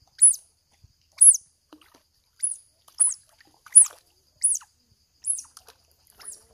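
Baby otter giving about eight short, very high-pitched squeaking calls, roughly one a second, each dropping sharply in pitch.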